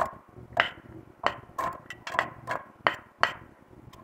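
A spoon knocking and clinking against an aluminium pan as diced onion is added and stirred: about eight sharp, irregularly spaced knocks.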